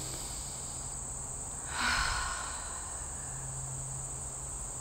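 Steady high-pitched chorus of summer insects, with a brief soft whoosh of noise about two seconds in.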